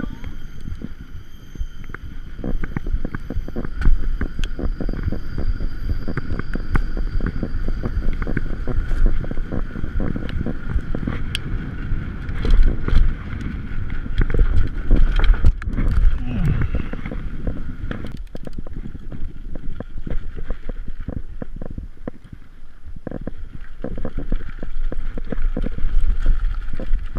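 Wind buffeting the microphone of a camera riding on a mountain bike, with the bike rattling and knocking over bumps in the surface. Many short knocks run through a steady low rumble.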